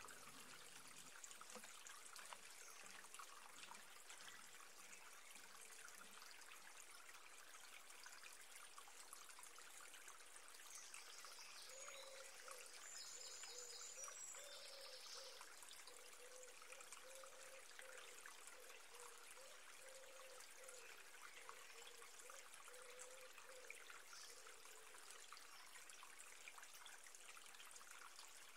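Near silence with a faint, steady trickle of running water, and a few faint high chirps about halfway through.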